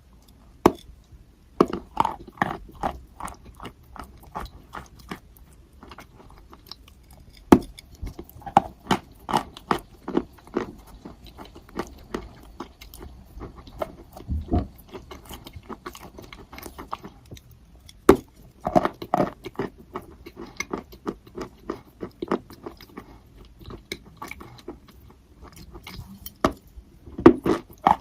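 Chalk being bitten and chewed: a sharp snap as a piece breaks off, then a run of crunches as it is chewed. This happens about four times.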